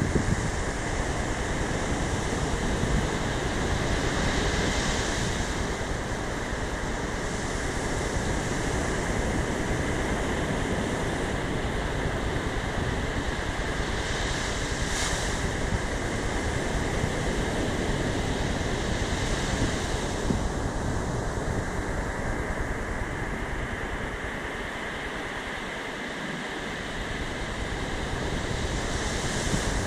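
Ocean surf breaking and washing up a sandy beach: a steady roar of waves that swells a little now and then, with wind rumbling on the microphone and easing briefly near the end.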